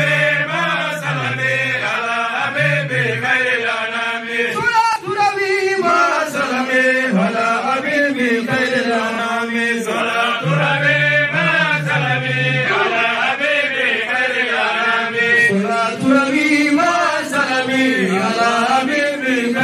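Men chanting Arabic devotional verses in praise of the Prophet: a lead voice on a microphone with other voices joining in, without a break.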